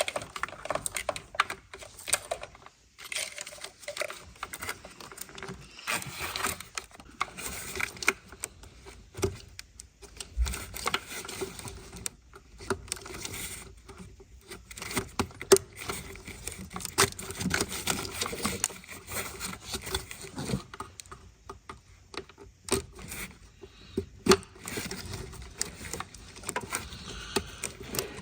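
Irregular clicks, taps and light rattles of hands and tools at work in a car's engine bay, unclipping plastic electrical connectors.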